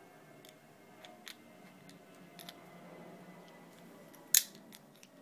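Scattered light clicks and ticks of a small screwdriver and folding-knife parts being handled and tried together, with one sharp, much louder click about four seconds in.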